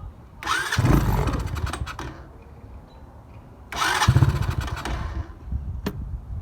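Coolster 125 ATV's engine being cranked twice, each try lasting about a second and a half, without catching and running: a hard cold start with no working choke, which the owner takes for a flooded engine.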